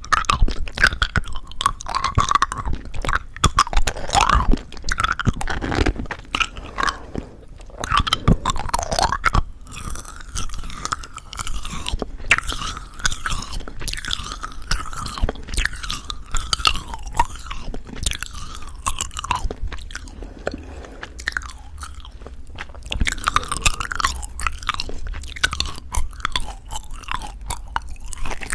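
Close-miked mouth sounds of eating crunchy-coated plum chewy jelly candy: irregular crunching of the sugar coating mixed with wet chewing. The chewing goes quieter for a few seconds past the middle, then picks up again.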